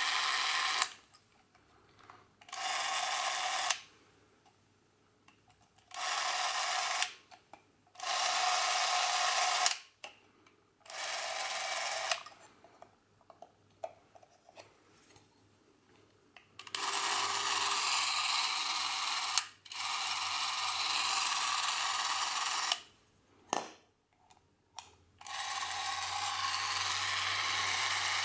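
Cinemax C-802 Macrozoom Super 8 movie camera's motor and film drive whirring in repeated runs of one to four seconds, starting and stopping several times.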